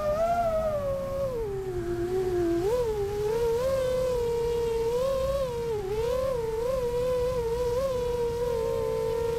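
5-inch FPV freestyle quadcopter's motors and propellers whining. The pitch dips about two seconds in, wavers up and down as the throttle is worked, then holds steady near the end.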